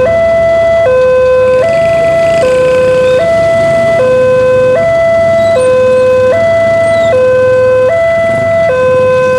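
Railway level-crossing warning alarm from the loudspeaker on the crossing pole: a loud electronic two-tone signal alternating evenly between a lower and a slightly higher note, each held a little under a second. It keeps sounding while the barrier arms rise after the train has passed.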